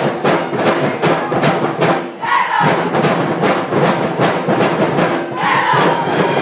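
Crowd of spectators cheering and chanting over music with a fast, steady beat, with two long calls rising above it.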